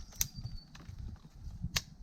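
Two sharp snaps about a second and a half apart, over a low, uneven rumble.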